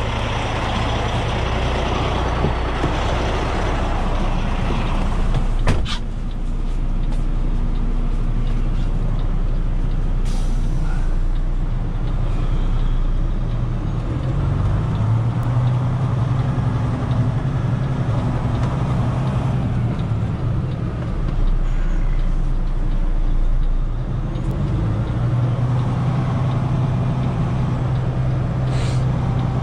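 Heavy-duty tow truck's diesel engine running as the truck drives, heard from inside the cab, its note rising twice as it pulls away and picks up speed. A single sharp click about six seconds in.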